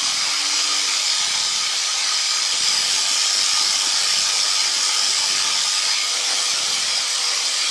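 Steady hiss of airflow and engine noise in flight aboard a P&M QuikR flexwing microlight trike powered by a Rotax 912ULS four-cylinder four-stroke engine, heard through the cockpit intercom, with faint steady engine tones beneath the hiss.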